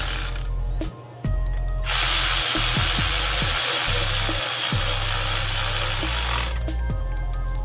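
Power drill running in two stretches, briefly at the start and again for about four and a half seconds from about two seconds in, over background music with a heavy bass and kick drums.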